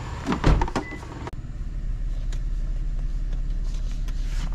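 Paper packet rustling and a low knock, then a car's engine idling steadily, heard from inside the cabin.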